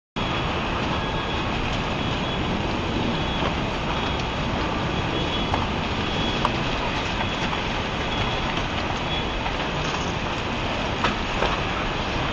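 Steady rushing noise of a helicopter in flight, with a few faint clicks.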